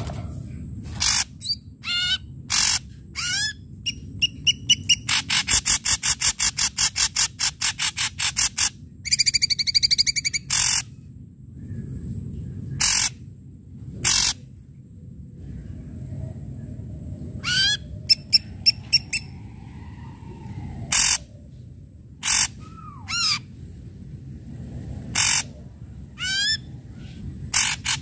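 Ashy drongo singing loudly: harsh, sharp calls strung into long rapid rattling series, with whistled notes that glide up in pitch between them.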